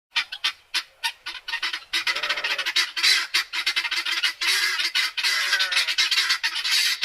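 A flock of large birds calling: a few separate harsh squawks at first, then from about two seconds in a dense, fast chatter of overlapping squawks with low honking calls underneath.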